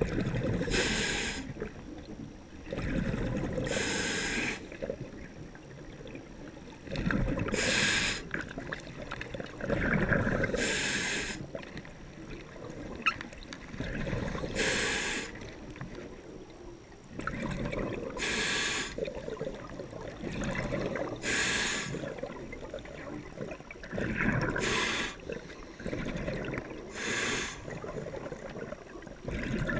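Scuba diver breathing through a regulator underwater: a short hiss of the demand valve on each inhale, then a longer low bubbling rumble as the exhaled air escapes. The breaths come about every three to four seconds, nine in all.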